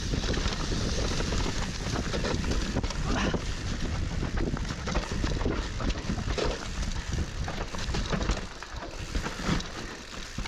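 Mountain bike riding down a dirt trail: steady tyre noise with frequent knocks and rattles from the bike over bumps, and wind on the microphone.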